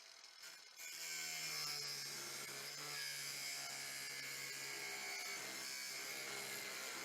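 Electric drill running steadily as a spot weld cutter bites into the sheet-steel floor panel, drilling out a spot weld.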